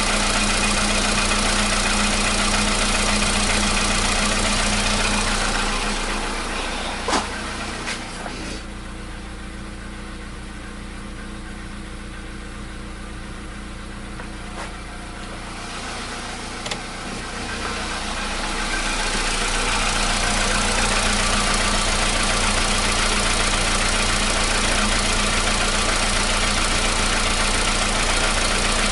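Volkswagen Polo Sedan's 1.6-litre CFNA four-cylinder petrol engine idling steadily while warming up, with no knock, the cold-start knock the owner reports has gone. The sound drops noticeably for about ten seconds in the middle, with a few sharp clicks, then comes back to full level.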